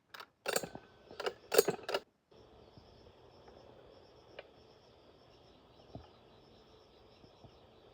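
A quick run of sharp metallic clinks and clanks, as of tools and machine parts being handled, then a faint steady outdoor background with insects chirping and an occasional single tick.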